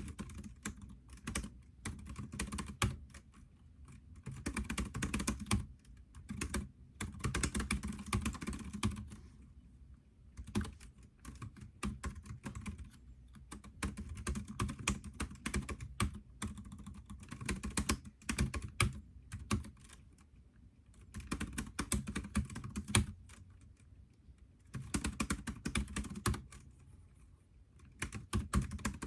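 Typing on a computer keyboard: runs of rapid key clicks lasting a few seconds each, broken by brief pauses.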